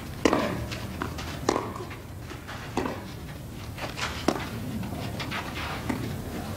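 Tennis ball bouncing on a clay court: a few scattered, sharp knocks at uneven intervals over a low, steady crowd murmur.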